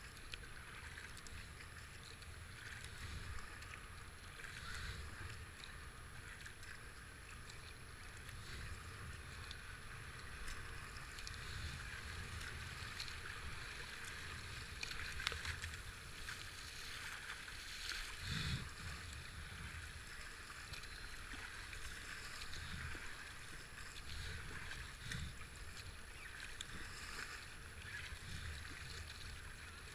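Fast river water rushing and splashing around a racing kayak's hull as it is paddled through choppy rapids, with occasional paddle splashes and a low, uneven rumble of wind on the microphone.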